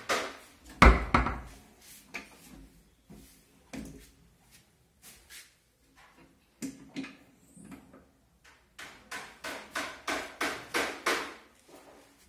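Knocks, clicks and rattles of a kitchen corner cabinet's swing-out kidney-shaped shelf unit and its door being handled, with a heavy thud about a second in and a quick run of knocks near the end.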